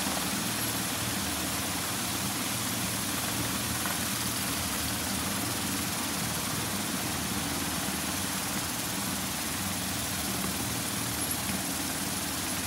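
Vibratory finishing bowl running steadily, a low hum with a constant hiss of the ceramic media churning around the parts, while it works through the paste stage of isotropic superfinishing.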